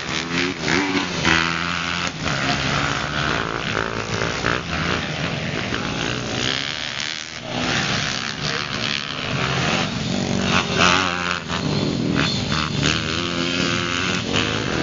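Small dirt-bike engine being ridden, its pitch rising and falling over and over as the throttle opens and closes.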